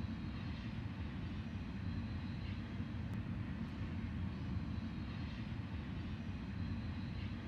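Freight train rolling past: a steady, deep rumble of wheels on rail, with faint high tones coming and going.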